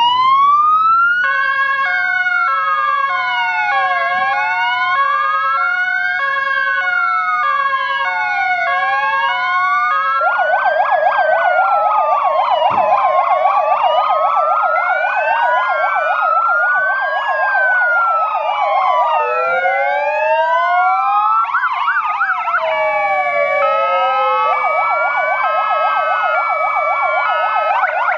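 Several emergency vehicle sirens from fire engines and an ambulance sounding together as a salute: slow rising-and-falling wails over a stepped multi-tone pattern, joined about ten seconds in by a louder rapid warble.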